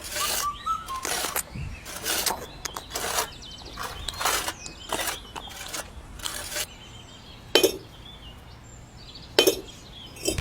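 Miniature bricks knocking and clinking together as they are handled, about a dozen short taps and scrapes, with two sharper ringing clinks near the end.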